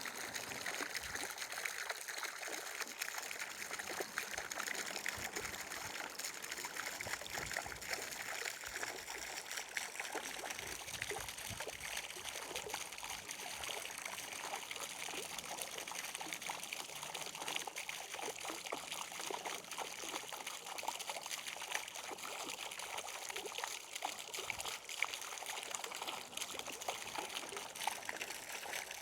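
Water trickling steadily, a continuous splashy hiss made of many small drips and splashes, with little deep rumble.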